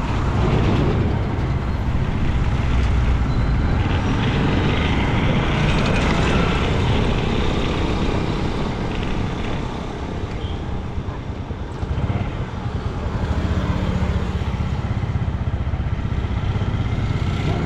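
Steady engine and road noise of a motor vehicle travelling along a road, easing off for a couple of seconds about ten seconds in.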